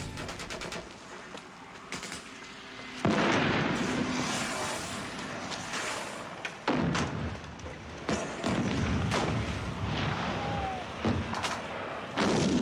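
Battle-scene film sound: a series of shell explosions and gunfire. The first and loudest blast comes about three seconds in and dies away slowly, followed by several more sharp blasts through the rest of the clip.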